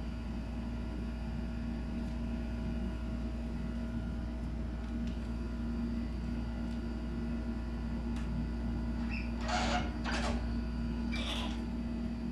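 Steady low background hum, with three short hissing or rustling bursts of noise near the end.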